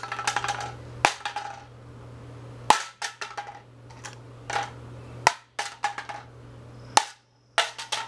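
A claw hammer beating a Revlon hairdryer on a concrete sidewalk: about six hard blows a second or two apart, each followed by the clatter of loose pieces and a brief ring from the housing.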